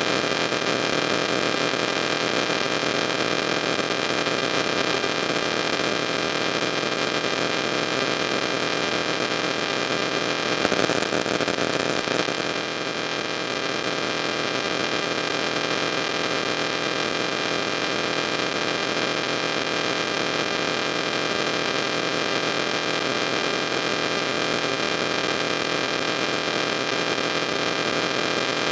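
Steady electrical hiss and hum, with several faint fixed high tones running through it and a slight swell about ten seconds in.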